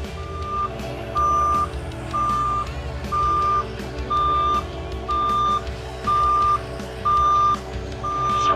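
Backup alarm on a Cat 289D compact track loader beeping steadily, about once a second, as the machine reverses. Its diesel engine runs underneath.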